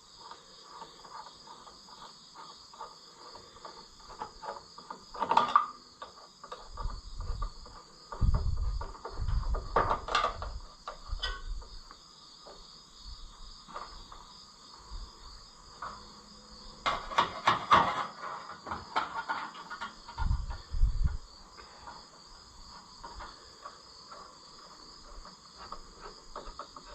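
A steady background chirping of insects, with scattered clanks, knocks and low thumps of parts and tools being handled during tractor reassembly. The heaviest clatter comes about two-thirds of the way through.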